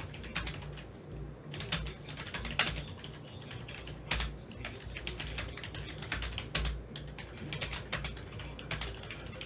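Typing on a computer keyboard: irregular keystroke clicks with a few louder taps.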